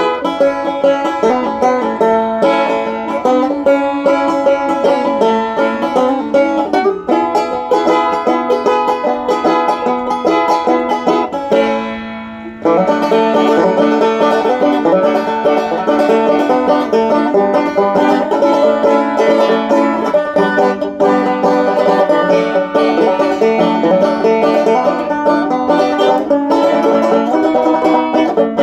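Banjo playing an instrumental traditional bluegrass tune, a steady stream of quickly picked notes. About twelve seconds in the sound fades briefly, then comes back suddenly at full level.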